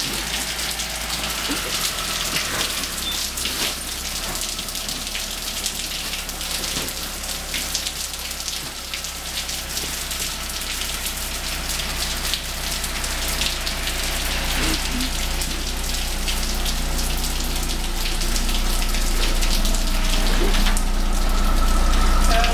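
Heavy rain falling steadily outside an open garage, a dense hiss of drops, heard from inside. A low car-engine rumble grows louder over the second half as a Chrysler PT Cruiser reverses up to the door.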